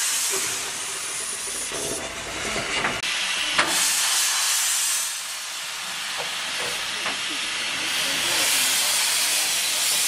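Steam hissing steadily from two standing 0-4-0 saddle-tank steam locomotives, blowing off at the safety valves and escaping around the cylinders. The hiss swells louder about three and a half seconds in and again from about eight seconds in.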